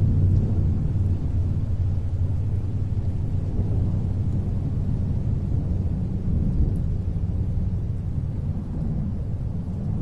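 Low, steady rumble of a boat's engine under way on open water.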